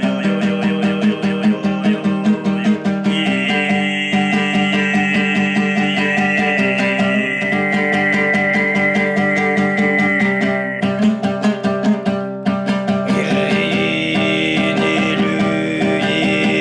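Altai throat singing (kai) over a strummed plucked string instrument: a steady low drone with a high whistling overtone melody held above it. The whistling overtone comes in about three seconds in, drops out around eleven seconds and returns a couple of seconds later.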